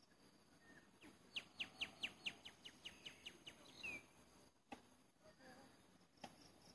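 A bird calling: a rapid series of about a dozen short, falling notes over some two and a half seconds, ending in a brief slurred note. Faint steady insect hum underneath, and two sharp clicks later on.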